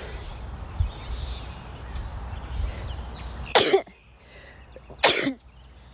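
A woman sneezing twice, about a second and a half apart, the first about three and a half seconds in: sun sneezes, set off by looking into the sun.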